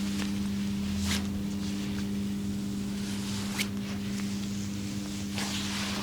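A steady low hum with a constant hiss behind it. A couple of faint, brief clicks come about a second in and about three and a half seconds in, and there is a soft rubbing rustle near the end.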